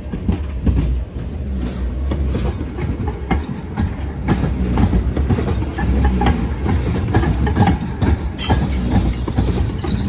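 Sheffield Supertram articulated tram passing close by, its steel wheels clattering over points and rail joints in irregular knocks above a steady low rumble.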